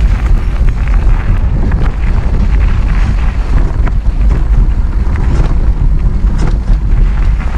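Mountain bike ridden fast along a dirt trail: heavy wind rumble on the microphone over the rolling of the tyres, with scattered clicks and rattles.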